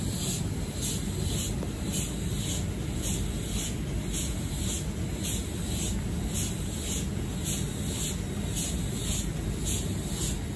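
Wind buffeting the microphone over a steady low rumble, with a faint high-pitched ticking repeating about twice a second.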